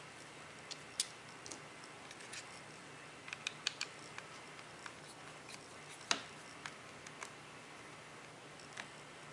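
Scattered light clicks and ticks of a screwdriver and small screws on the plastic housing of a turn signal lever module as the screws are taken out. There is a sharp click about a second in, a quick run of clicks around three and a half seconds, and the loudest click about six seconds in.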